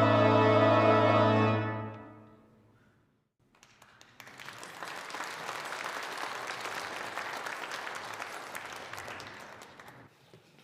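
The final held chord of the church's offertory music dies away over about two seconds. After a short silence, the congregation applauds for about six seconds, and the clapping tapers off near the end.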